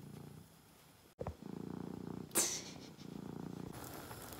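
Domestic cat purring softly while being stroked, with one brief sharp noise about halfway through. Shortly before the end the sound changes to the steady bubbling hiss of a pot of spaghetti at the boil.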